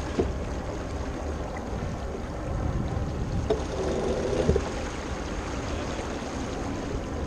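Water rushing and splashing along the hull of a J105 sailboat under way, with a steady low rumble of wind on the microphone.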